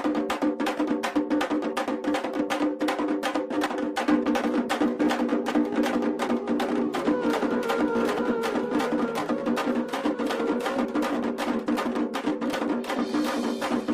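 Background music with a fast, even percussion beat over sustained tones.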